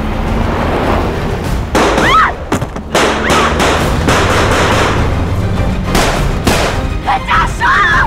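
Action-scene film soundtrack: a tense score over a steady low drone, struck through by several heavy thuds, with voices crying out twice, about two seconds in and again near the end.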